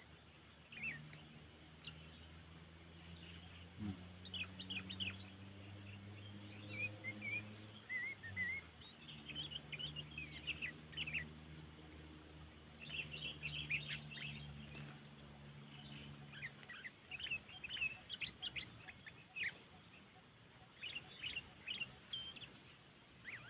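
Sooty-headed bulbuls (kutilang) calling in short, sharp chirps that come in scattered bursts, over a faint low steady hum that fades out in the second half.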